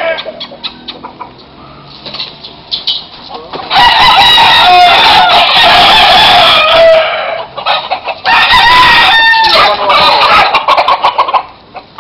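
Gamecocks crowing loudly: one long stretch of crowing starting about four seconds in, then another from about eight seconds in.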